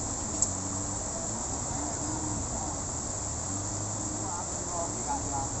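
Steady high-pitched chorus of insects, with a low steady hum and faint distant voices beneath it. There is one short click about half a second in.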